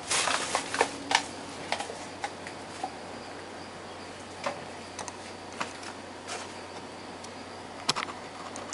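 Small sharp clicks and knocks of tools and parts being handled on a wooden workbench: a quick flurry at the start, then scattered single ticks, with a louder double knock near the end, over a steady low hiss.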